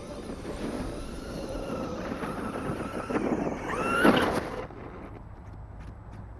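Traxxas Rustler RC truck's electric motor whining as it drives in snow, revving up to a loud, steeply rising whine about four seconds in, then dropping off suddenly to a quieter hum.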